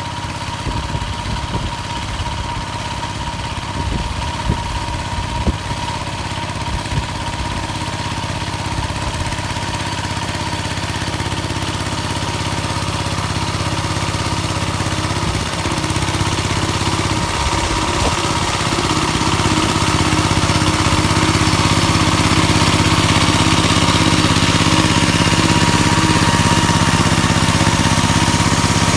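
Engine of a motor-tractor built from a walk-behind tractor, running steadily under load while driving a rotary tiller through ploughed ground. Scattered knocks and rattles in the first few seconds, and the engine grows gradually louder through the second half.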